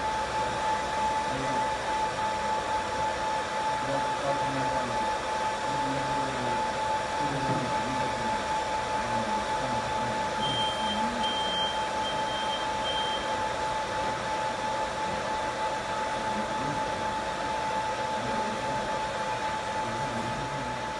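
Hot-air blower of a WDS-750 BGA rework station running steadily while it heats a circuit board: a constant whoosh of air with a steady mid-pitched whine. A run of short high beeps sounds about halfway through.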